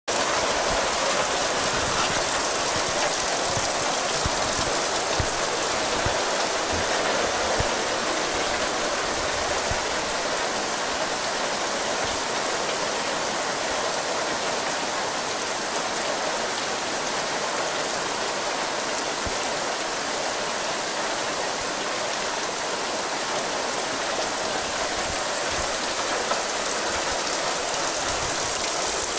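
Steady summer rain: a dense, even hiss of falling rain with scattered drop impacts.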